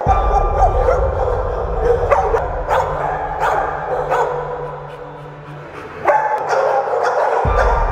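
Dogs in wire kennel cages barking repeatedly, in short sharp barks with a few yips, easing off briefly past the middle and starting up loudly again about six seconds in.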